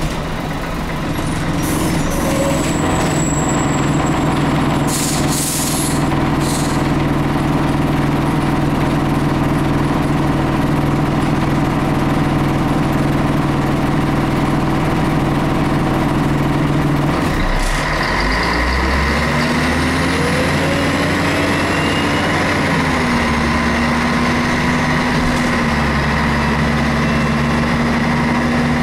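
Scania L113CRL bus's 11-litre six-cylinder turbo diesel running steadily, heard from inside the rear of the bus above the engine, with a few short hisses in the first several seconds. About two-thirds of the way through the engine note drops away, then climbs again and steps down to a lower steady note, like an automatic gearbox changing up.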